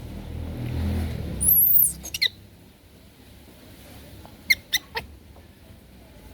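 Baby monkey making high-pitched squeaks: one very high squeal about a second and a half in, a couple of quick falling chirps just after, then three short squeaks around four and a half to five seconds, over a low rumble at the start.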